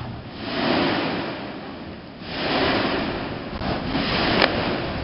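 Rushing noise of Mount Yasur's vents erupting, gas jetting and lava spatter, rising and falling in two swells of about two seconds each, with a single sharp click near the end.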